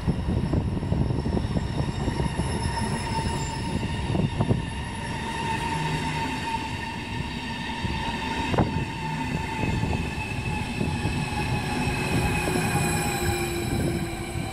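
Stadler KISS double-deck electric multiple unit rolling slowly into the platform, with a low rumble of wheels on rail and high whines and squeals that slowly drop in pitch as it slows. A couple of sharp clacks of wheels over rail joints or points.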